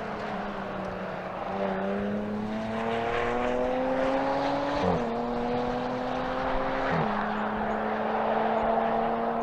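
Jaguar F-Type sports car engine accelerating, its pitch climbing and then dropping sharply at two upshifts, about five and seven seconds in, before holding steady, with road noise underneath.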